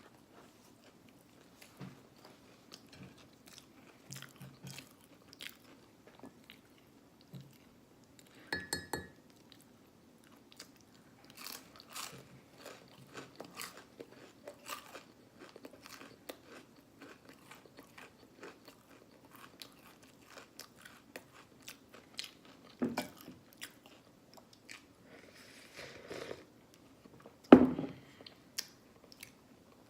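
Close-up eating sounds of syrupy, buttered Eggo cinnamon waffles: chewing and biting with wet mouth clicks and lip smacks, with a sharper clink about a third of the way in and a louder knock near the end.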